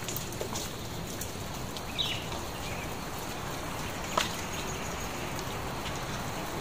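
Steady wind noise, an even hiss with no lull, with a short chirp about two seconds in and a single click a little after four seconds.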